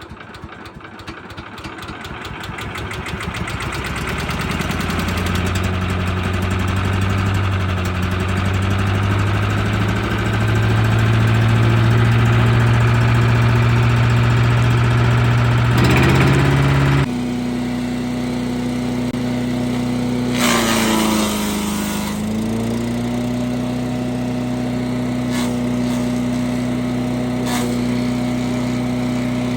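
Gas wood chipper shredder's 338 cc engine running: it speeds up over the first few seconds, then runs steadily. About 20 seconds in, a noisy burst of a couple of seconds comes as the engine pitch dips briefly under load, as brush is fed through.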